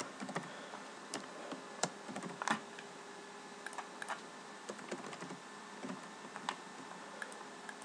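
Computer keyboard being typed on, faint irregular key clicks.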